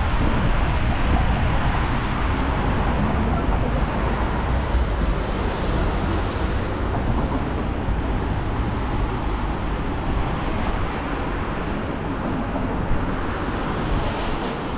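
Steady city street traffic noise, a low rumble with a hiss over it.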